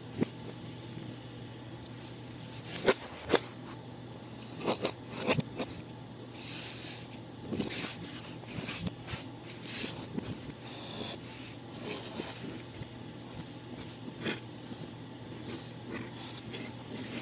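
A hand rolling and pressing Play-Doh on a hard tabletop: soft rubbing and scraping, with a few sharp taps in the first half, over a steady low hum.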